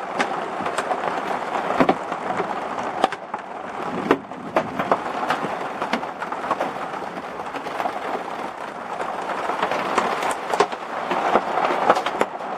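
Hail and rain falling: a steady hiss of rain with many irregular sharp clicks of hailstones, pea-sized and a few larger, striking hard surfaces.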